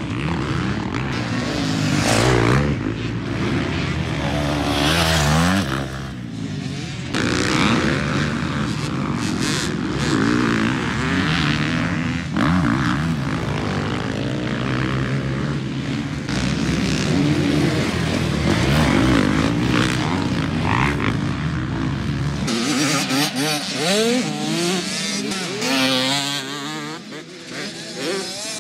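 Motocross dirt bike engines revving up and down on the track, the pitch climbing and dropping again and again as the riders throttle through jumps and corners. The sound changes abruptly a few times, about six seconds in and again past twenty seconds, as clips are cut together.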